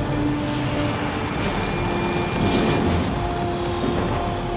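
A motorboat's engine running as the boat speeds across the water, under sustained held notes of film score.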